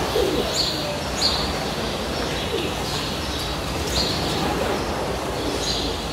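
Birds calling over a steady low background hum, with short high chirps every second or two and a few low cooing notes.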